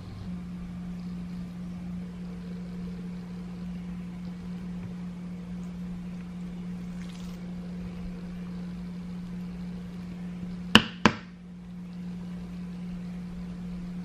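A steady low hum, with two sharp knocks close together about eleven seconds in.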